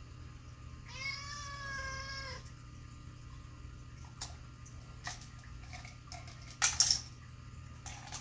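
A cat meows once, one steady call about a second and a half long, starting about a second in. Later come a few sharp plastic clicks and, near the end, a louder clatter as the cat paws at the rotating treat tubes of a puzzle feeder.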